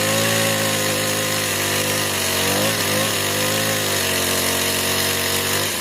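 Stihl mini chainsaw's two-stroke engine running at high revs. Its pitch dips briefly twice about midway, then picks back up.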